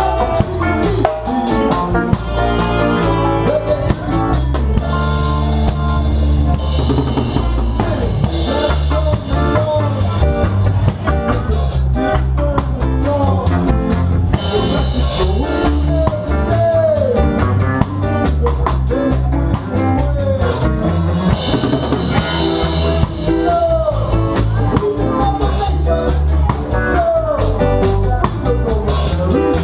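Live band playing reggae: a drum kit keeps the beat under electric guitars and bass, with lead notes that slide and bend in pitch.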